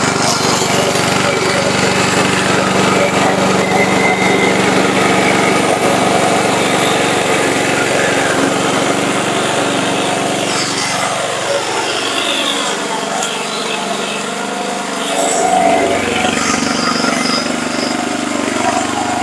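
Petrol engine of a remote-controlled, self-propelled flail mower running steadily as it cuts grass; its note sags in pitch about halfway through and climbs back a few seconds later.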